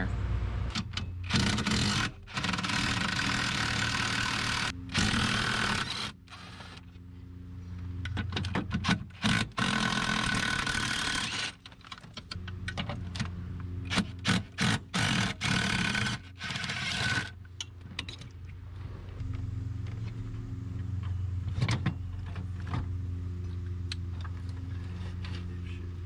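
Cordless power tool running in three spells of a few seconds each over the first two-thirds, backing out the steering column's mounting bolts; quieter after that.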